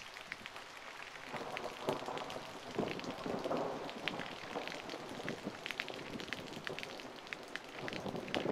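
Rain during a thunderstorm, with many separate drops clicking sharply close to the microphone. A louder swell of noise builds from about a second in and fades by about four seconds.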